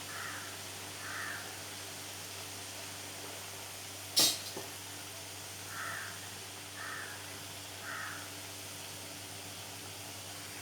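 Batter frying in hot oil with a steady sizzle. A single sharp click comes about four seconds in, and five short calls sound in the background, two near the start and three later.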